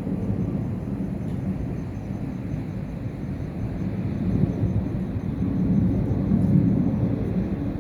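Steady low outdoor rumble, like distant traffic, swelling a little around six to seven seconds in.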